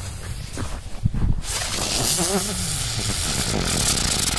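A single firework's fuse hissing steadily as it burns down and sprays sparks, with a couple of knocks about a second in.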